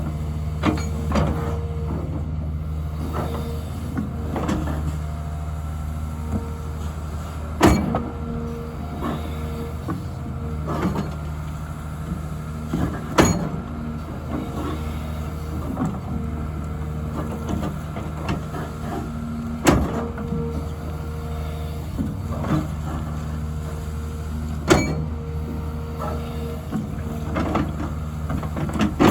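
Hyundai HX300 excavator digging: its diesel engine runs steadily with a hydraulic whine, while the bucket and arm give off frequent small clanks and a loud sharp knock about every five to six seconds.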